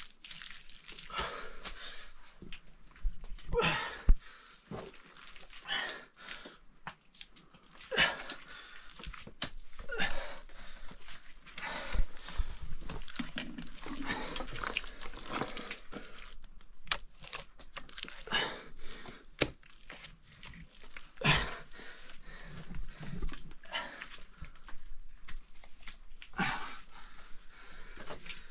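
Wet mud plaster being slapped down and smeared by hand: irregular wet slaps and squelches every second or two, a few of them louder.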